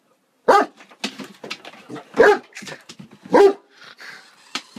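Great Dane barking: three loud barks over about three seconds, with quieter short sounds between, fearful alarm barks at a small remote-control toy car.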